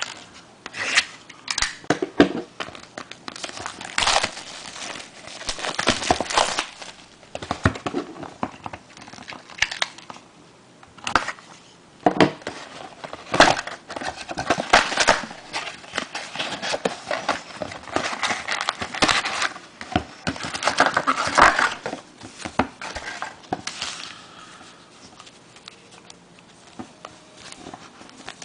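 Plastic wrapping on a sealed box of trading cards and its card packs being crinkled and torn open, in irregular bouts of rustling and crackling.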